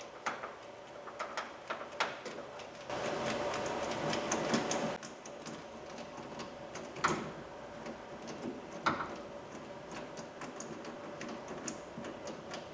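Light clicks and ticks of a T20 Torx driver turning a screw, with a denser stretch of rapid clicking about three to five seconds in.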